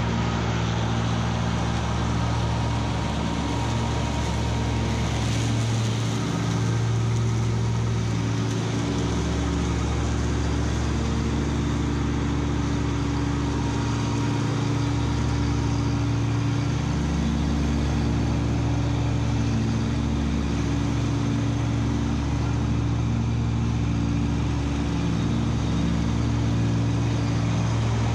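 Kubota B2601 compact tractor's three-cylinder diesel engine running steadily under load while driving a Land Pride FDR1660 finish mower through tall, dense grass.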